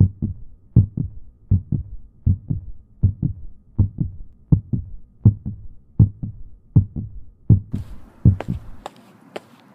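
Heartbeat sound effect: a steady double thump, lub-dub, about 80 beats a minute. Near the end a hiss with sharp crackling clicks comes in, and the heartbeat stops.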